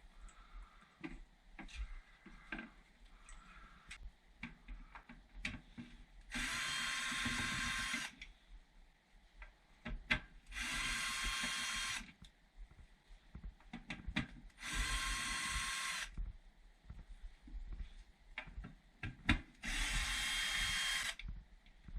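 A power drill/driver runs in four short steady bursts of about two seconds each, backing out the screws on a furnace's collector box and inducer motor. Light clicks and knocks of handling the screws and panel come between the runs.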